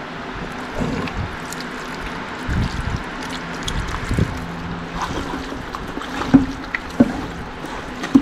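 A hand squishing and kneading chicken pieces with thick yogurt in an aluminium pot: wet squelching, with a few sharp knocks in the second half. A steady low hum runs underneath.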